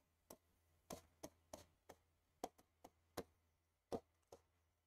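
About ten faint, sharp taps at uneven intervals from a pen tip striking a writing board's surface while writing.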